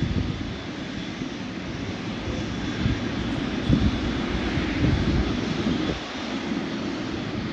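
Jet airliner engine noise: a loud, continuous deep rumble that swells and dips unevenly, with a faint steady high whine in the first few seconds.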